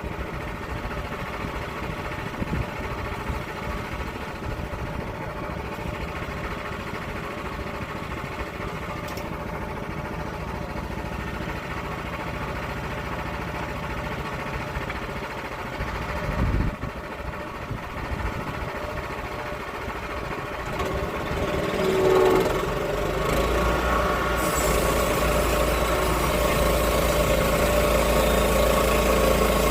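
An engine running steadily, which picks up and runs louder from a little over two-thirds of the way in.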